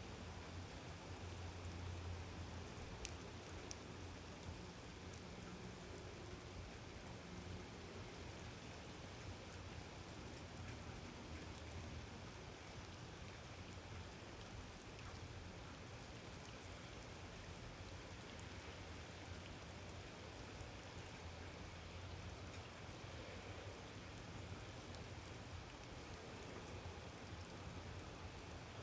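Heavy rain falling steadily, an even hiss of drops with a low steady hum underneath.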